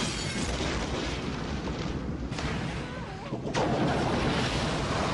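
Action-movie soundtrack of gunfire and blasts, dense and loud, with a sudden heavier burst about three and a half seconds in.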